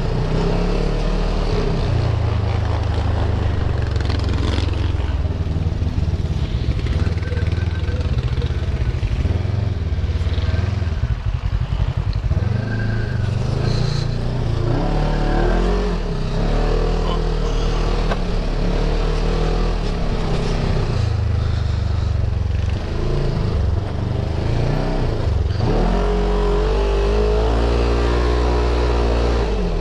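Off-road side-by-side buggy's engine running under way, its pitch rising and falling with the throttle, and revving up again near the end.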